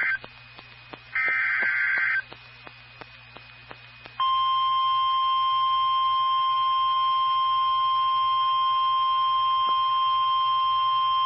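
NOAA Weather Radio Emergency Alert System signal: the tail of one buzzy SAME digital header burst, then another about a second long, with faint static clicks between them. From about four seconds in, the steady 1050 Hz weather radio warning alarm tone sounds, the sign that a warning is about to be read.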